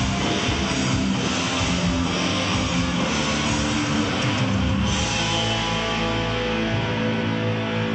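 Rock band playing live with loud electric guitar. A little under five seconds in, the dense full-band sound drops away, leaving sustained, ringing guitar chords.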